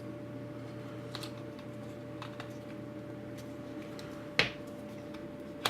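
Small clicks and taps of rotary-tool kit accessories and their containers being handled, with one sharper click about four seconds in and another at the end, over a faint steady hum.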